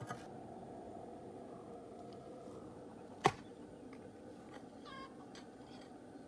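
Hand-digging among weeds with a small hoe: one sharp knock about three seconds in, then a few faint ticks, over a steady low outdoor hum.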